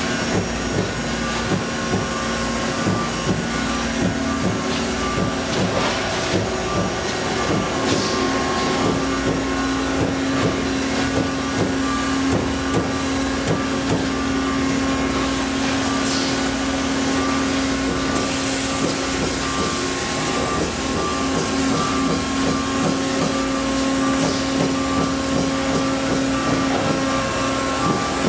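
Steady mechanical hum and whir of Amada FMS sheet-metal punching cell machinery running, with a low hum and a higher whine held throughout. The low hum grows stronger about a third of the way in, and a few faint knocks sound over it.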